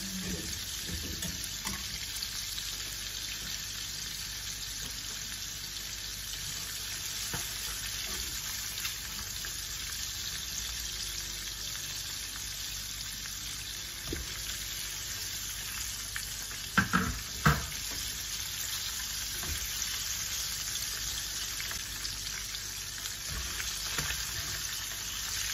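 Floured mackerel pieces deep-frying in vegetable oil, a steady sizzle, the fish fried crisp. Two sharp knocks sound about two-thirds of the way through.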